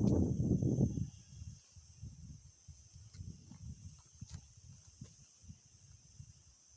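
A steady, high-pitched chorus of insects, with a loud low rumble on the microphone in the first second and softer low rustling and a few faint clicks after.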